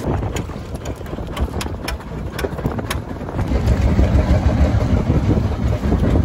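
Small fishing boat's engine idling as a low, uneven rumble that grows louder about halfway through, with water splashing along the hull and a few light clicks from the net being handled.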